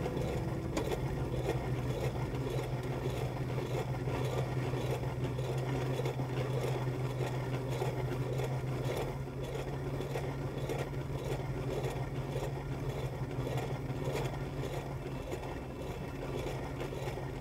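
A vehicle engine running steadily, with a low even hum.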